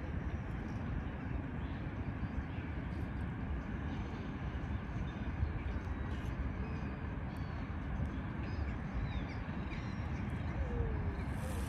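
Open-air ambience: a steady low rumble with scattered faint bird calls over it, including one falling call near the end.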